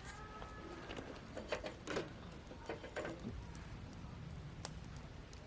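Campfire burning in a wood grill: scattered crackles and pops over a low steady background, with a brief faint whistle right at the start.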